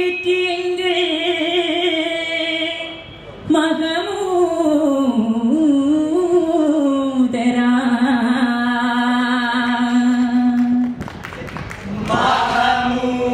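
Unaccompanied male singing of a Vattappattu (Mappila) song in long, slow held notes with ornamented slides. It breaks off briefly about three seconds in and again near the end before starting a new line.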